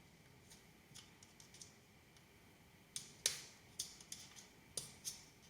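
Light clicks and taps of a battery holder being fitted onto a circuit board, its pins pushed into the holes. Faint ticks at first, then a run of sharper clicks from about halfway.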